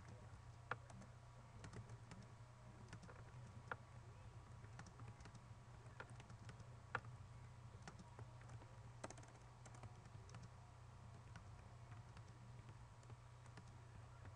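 Faint typing on a computer keyboard: irregular key clicks, with a few louder strikes, over a low steady hum.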